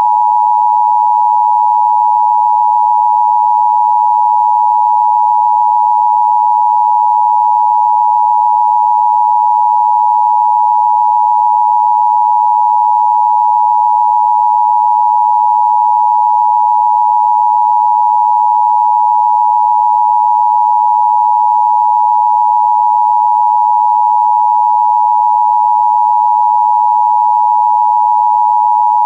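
Emergency Broadcast System attention signal: a loud, steady high tone, the paired 853 and 960 Hz tones of the alert, held without a break.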